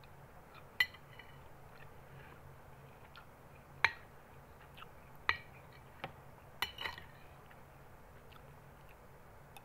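Metal spoon clinking against a glass bowl of rice as food is scooped up: about six sharp, ringing clinks at uneven intervals, the loudest about a second in and near four seconds.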